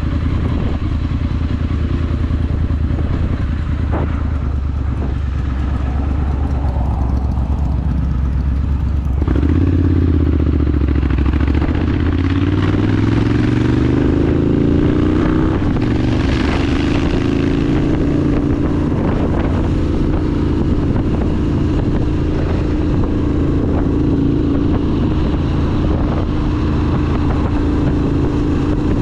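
Triumph Scrambler 900's 900 cc parallel-twin engine through a ZARD aftermarket exhaust, running at low revs at first. About a third of the way in it opens up sharply, the note rising as the bike accelerates. It then settles into a steady cruising note.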